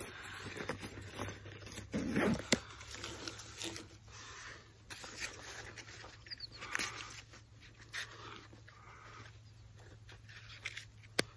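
A man's breathing close to the microphone, in scattered short breaths, with a few light clicks and rustles.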